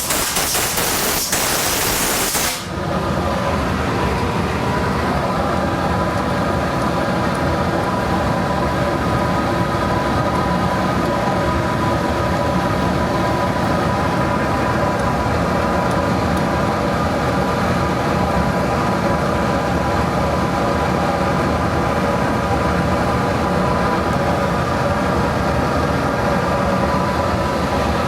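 A compressed-air blast clearing chips, a loud hiss that cuts off about two and a half seconds in. A metal lathe then runs steadily with a constant whine.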